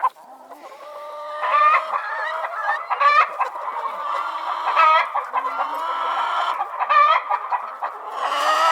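Chickens clucking, many short calls overlapping, from a flock. It starts faint and builds up over the first second or two.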